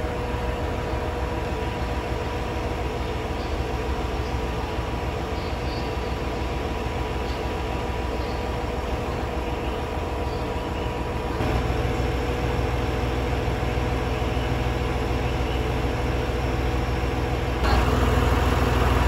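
Diesel train's engine idling while it stands at the platform: a steady low rumble with a constant hum over it, growing louder about two-thirds of the way through and again near the end.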